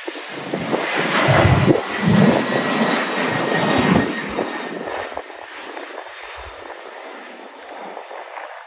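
Twin-engine jet airliner at takeoff thrust as it climbs out: a loud jet roar with a low rumble, loudest over the first four seconds, then fading as the plane moves away.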